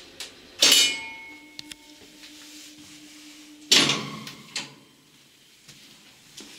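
Old Zremb passenger lift at a floor: a loud metallic clunk with a short ring, a steady low hum for about two seconds, then another loud clunk as the manual landing door is unlatched and pushed open, followed by a lighter clack.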